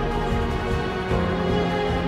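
Background music with sustained notes, changing chord about a second in.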